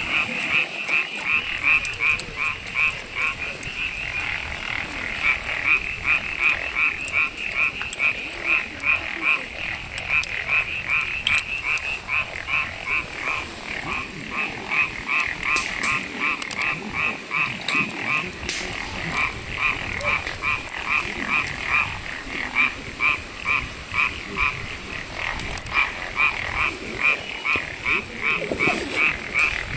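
Frogs croaking in a steady, rhythmic run of short calls, about three a second, without a break.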